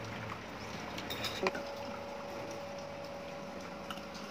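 Steady restaurant background noise with a few light clicks of tableware, the sharpest about one and a half seconds in.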